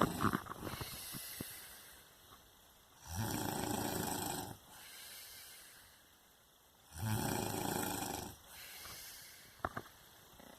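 A person snoring: two long, loud snores about three and seven seconds in, each lasting about a second and a half and followed by a softer breath sound, with the next snore starting right at the end. A few faint clicks come in the first second and a half.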